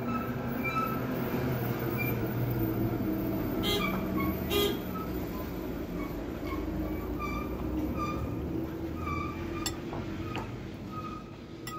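Noodles being eaten with a fork from a ceramic bowl, with a few sharp clicks of the fork on the bowl, over a steady low hum and a short high chirp that repeats about twice a second.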